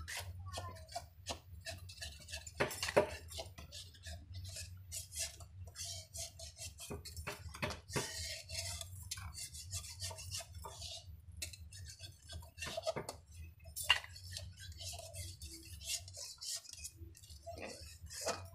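Ivy gourds being cut by hand with a small knife: irregular light clicks and taps of the blade and vegetables, with a low steady hum underneath.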